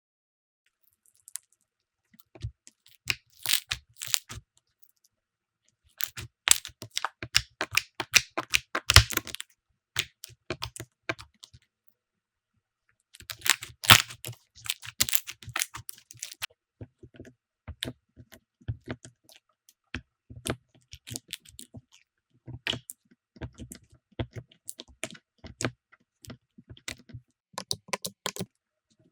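Slime being pressed, poked and squeezed by hand, giving fast crackling and popping clicks in bursts of a few seconds with short silent pauses between.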